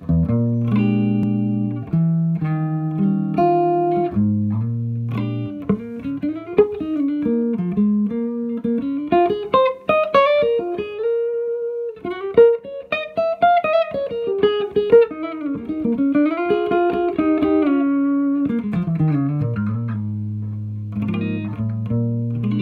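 Stephen Holst custom hollow-body electric guitar played through an amplifier, its Harmonic Design pickup set to both coils in series (the humbucking sound). It opens with chords, plays single-note melodic lines through the middle, and settles on held, ringing chords near the end.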